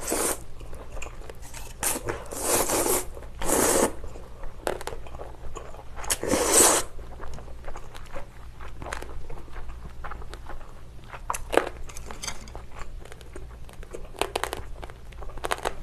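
Close-miked mukbang eating sounds: several noisy slurps of cold naengmyeon noodles and broth in the first seven seconds, then chewing with short wet smacks and clicks.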